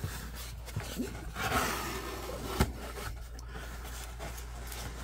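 Hands opening a corrugated cardboard box: the flaps rubbing and scraping, louder for about a second starting around a second and a half in, with a single sharp knock just after, then quieter handling among foam packing peanuts.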